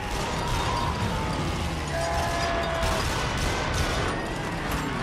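Film battle soundtrack of triple-mount 25 mm anti-aircraft guns firing rapidly. Many shots crack in quick succession over a dense rumble, with a few drawn-out high tones on top.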